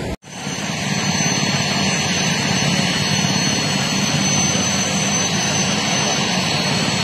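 Light helicopter's turbine engine running on the ground: a steady rush with a constant high-pitched whine.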